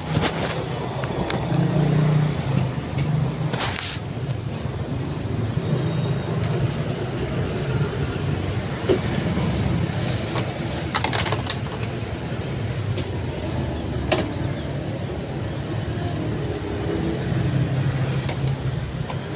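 Motor vehicle engine running steadily with road traffic noise, a few sharp clicks or knocks, and a short run of evenly spaced high ticks near the end.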